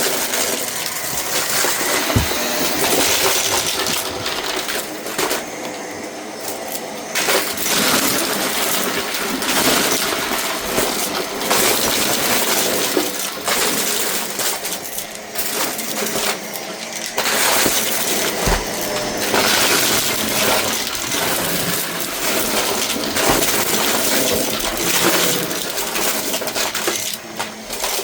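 Shark vacuum cleaner running over a rug, its motor steady while the suction noise swells and fades with each push and pull. Bits of a dry debris mix rattle and clatter as they are sucked up through the machine.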